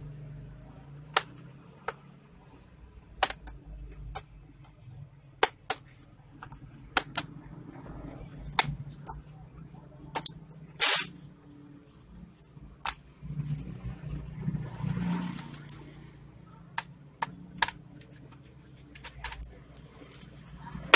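Sharp plastic clicks and snaps, about a dozen spread irregularly, as the keyboard's retaining latches on an Acer Aspire 4752 laptop are pried free. A louder snap comes near the middle, followed by a few seconds of handling and rubbing of the loosened keyboard.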